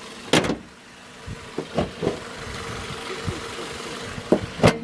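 Hood of a 2011 Ford Focus being closed: a thump about half a second in and a few light knocks, then a sharp slam near the end that shuts it. The car's four-cylinder engine idles steadily underneath.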